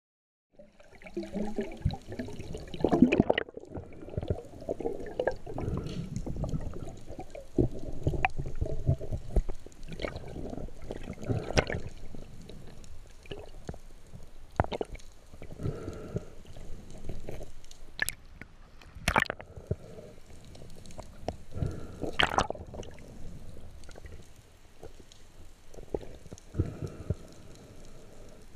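Underwater sound heard through a camera housing: muffled water movement and gurgling with scattered sharp clicks and knocks, the loudest of them a few seconds apart.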